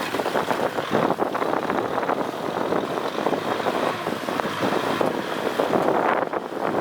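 Tractor running while it ploughs a field, heard as a steady rough noise, with wind buffeting the microphone.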